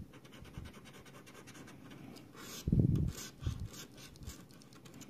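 A coin scraping the coating off a paper scratch-off lottery ticket in rapid, repeated strokes. A few louder, dull thumps come about three seconds in.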